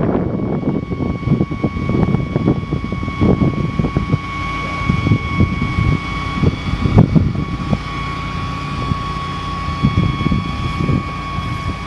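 Ford F700 truck's 6.1L V8 gas engine running, with a steady high whine over an uneven low rumble. The whine drops out briefly about halfway through.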